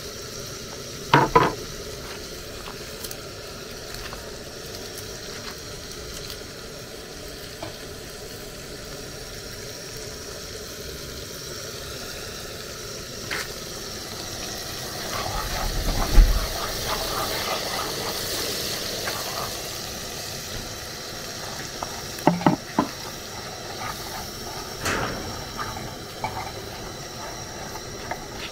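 Cooking sounds: a steady sizzling hiss with scattered sharp knocks of a utensil against a pot. The loudest is a heavy thump about sixteen seconds in.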